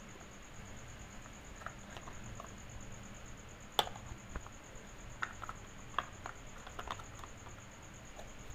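Small plastic toy pots, pans and lids clicking and clacking against each other as they are handled, in scattered light taps, with a sharper knock about four seconds in and a cluster of clicks a second or two later.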